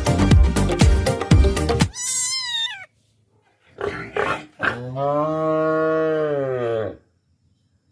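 Dance music with a heavy beat for about two seconds, then stops; a short high wavering animal call follows, and after a pause a cow's long low moo that rises and falls, lasting over two seconds.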